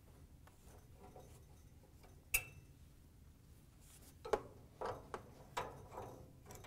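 Faint metal clicks of a Phillips screwdriver working the screws that hold a gas dryer's burner valve to its bracket. There is one sharp click a little over two seconds in, then a quick run of lighter clicks near the end.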